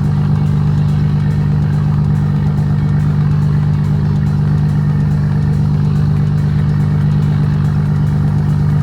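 A boat engine running steadily, a constant low drone that does not change in pitch.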